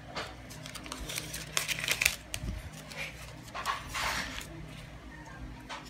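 Folded paper banknotes rustling and crinkling as they are taken out and unfolded by hand, in irregular spells that are loudest about two and four seconds in.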